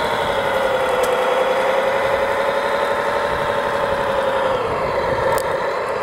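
Radio-controlled model Liebherr 741 crawler bulldozer running, a steady engine-like drone whose pitch dips about four and a half seconds in and comes back up, with a sharp click just after the dip.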